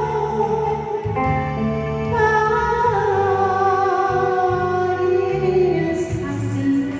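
A slow Korean ballad sung with long held, sliding notes over an accompaniment with a steady bass line.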